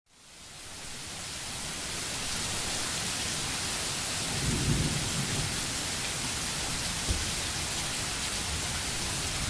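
Heavy rain pouring down in a steady dense hiss, fading in over the first couple of seconds, with a short low rumble about halfway through and a single sharp knock near the end.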